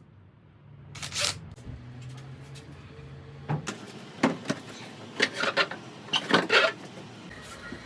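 A series of sharp knocks and clatters, coming thick between about four and seven seconds in, with a low steady hum for the first three and a half seconds.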